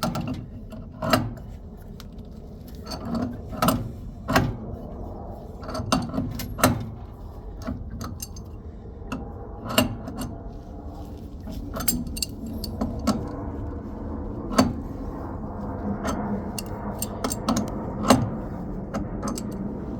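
Metal wrenches clinking and knocking against steel pipe fittings as a threaded gas-line adapter is worked loose, with sharp irregular clicks every second or so.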